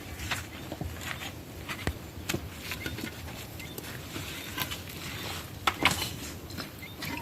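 Irregular light knocks and clicks over faint background noise, with the sharpest pair of knocks about six seconds in.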